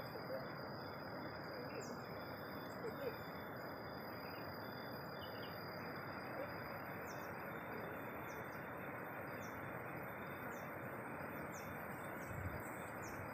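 Rice-field ambience: a steady wash of noise with a thin, steady high tone held throughout. Short high bird chirps repeat about once a second, mostly in the second half.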